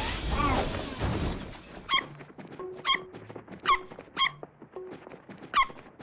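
A whooshing swish with a falling whistle opens. It is followed by a series of short, high, squeaky yelping calls from a cartoon zebra herd, about five over four seconds.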